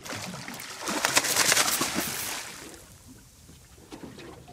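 Water splashing hard at the surface beside the boat as a hooked fish thrashes on the line: a burst of splashing that builds over the first second, is loudest about a second and a half in, and dies away by about halfway through.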